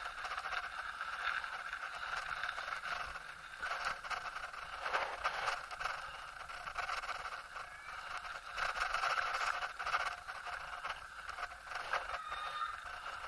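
Bicycle rolling along a paved lane: a steady rushing noise with frequent small knocks and rattles from the bike and camera.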